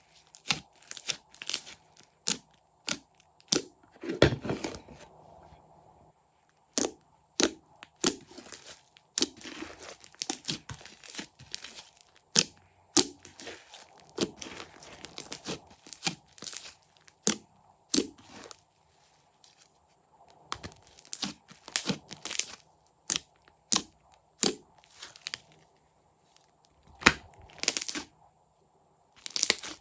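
Slime being squished and stretched by hand, giving an irregular run of sharp crackling pops and sticky tearing sounds with brief pauses.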